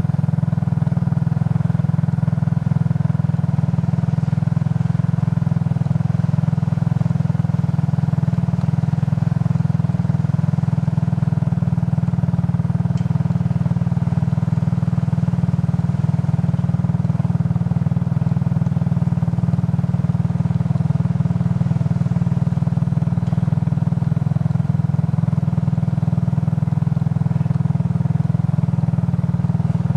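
Suzuki King Quad 300 ATV's single-cylinder four-stroke engine running steadily at an even, unchanging pitch.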